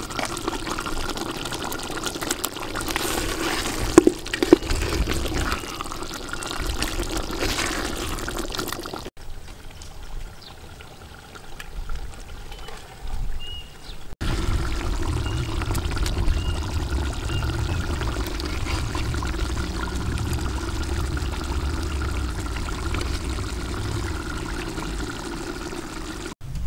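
Chicken stew bubbling and sloshing in a metal cooking pot as it is stirred and ladled out, with a couple of sharp clinks of the spoon against the pot about four seconds in.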